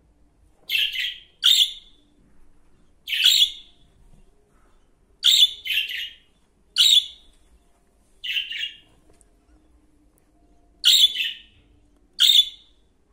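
Budgerigar calls: about nine short, sharp, high chirps, some single and some in quick pairs, spaced roughly one to two seconds apart.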